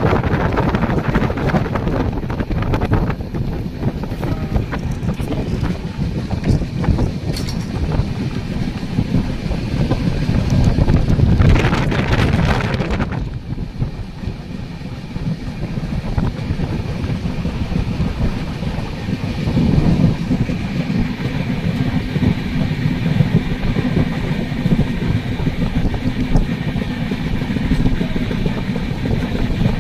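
Passenger train running at speed, heard from an open coach doorway: a steady rumble and rattle of wheels on rail, with wind buffeting the microphone. A brief louder rushing swells and fades about twelve seconds in.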